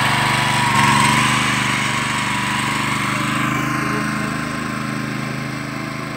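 Toro Greensmaster walk-behind greens reel mower, its small petrol engine running steadily as it is pushed across the green, growing gradually fainter as it moves away.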